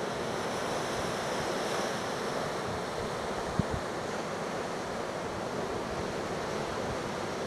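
Ocean surf breaking steadily on the beach as a hurricane swell builds, with wind on the microphone. Two brief low thumps about halfway through.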